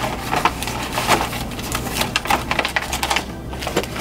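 Paper envelopes and kit packaging rustling and crinkling as they are handled and sorted in a cardboard box, a quick run of crackles and small clicks with a brief lull near the end.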